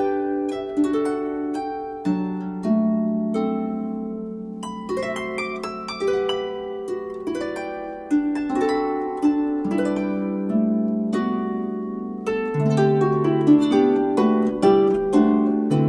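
Solo harp music: plucked notes ringing and overlapping in a gentle melody with chords.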